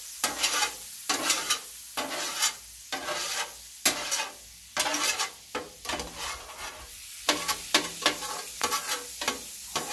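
Metal griddle scraper scraping across the hot steel top of a 22-inch Blackstone griddle in repeated short strokes, about two a second, with water sizzling on the surface as the seasoning residue is pushed off.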